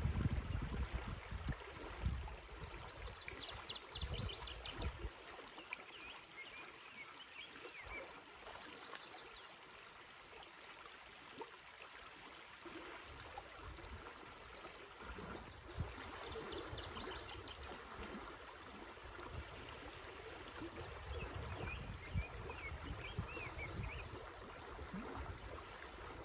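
River water rushing steadily over a shallow, rocky run, with a bird singing short, quick phrases of high chirps several times.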